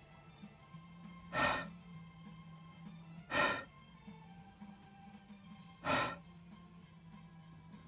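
Three short puffs of breath blown at a cat, about two seconds apart, each a brief rush of air.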